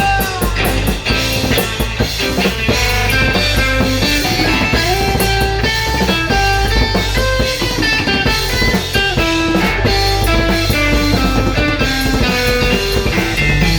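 Instrumental break of a rock song: guitar playing a melody over drum kit and bass, with no vocals.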